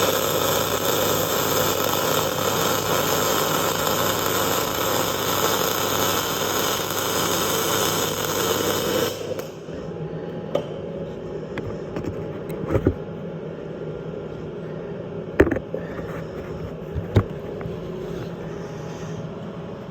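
Electric arc welding: a steady, loud crackling hiss for about nine seconds that then stops. A few separate sharp metal knocks follow.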